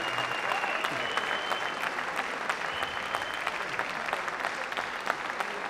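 Audience applauding, dense clapping that slowly dies down, with a thin high steady tone held twice in the first few seconds.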